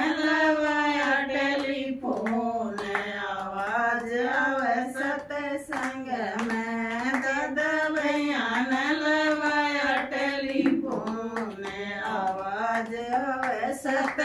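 Devotional folk singing, long held notes with a wavering pitch, with hand-clapping keeping time.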